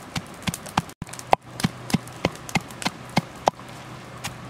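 Knife chopping on a cutting board in steady, even strokes, about three a second.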